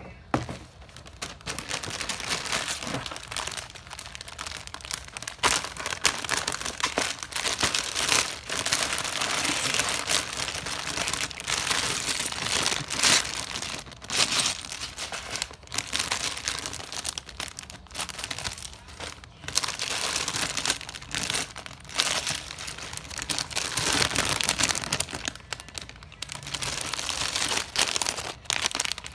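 Packaging of a building-brick set being handled and opened by hand: continuous crinkling and tearing, with many sharp crackles.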